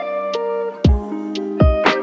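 Background music: plucked guitar notes over a steady drum beat, with a deep kick about once a second.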